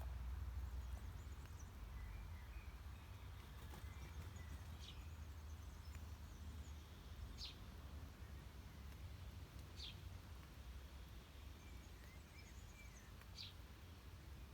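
Wild birds calling faintly over a low outdoor rumble: four short, high chirps spaced a few seconds apart, with faint twittering in between.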